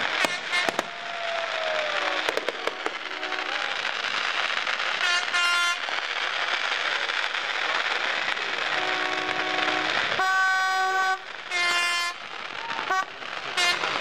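Fireworks going off: sharp bangs near the start and again about two seconds in, over steady crackling. From about five seconds in, horns toot four times, each blast about half a second to a second long.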